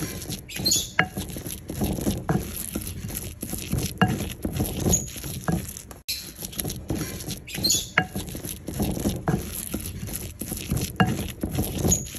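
A pestle mashing and scraping fried potato in a ribbed mortar bowl: an uneven run of soft knocks and scrapes, several a second.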